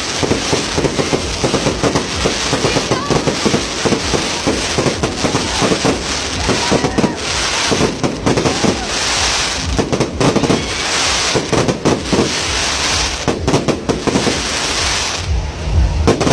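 Fireworks display going off: a rapid, continuous run of bangs and crackling, with hissing between the bursts.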